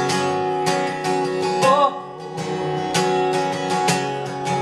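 Acoustic guitar strummed in a steady rhythm of chords, with a brief drop in loudness about two seconds in.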